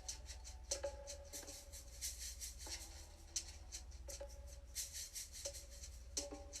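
Music generated in real time from a heartbeat by a Sound of Soul biofeedback device, set to a drum sound: soft shaker-like percussion strokes with a few pitched notes every second or so, over a steady low hum.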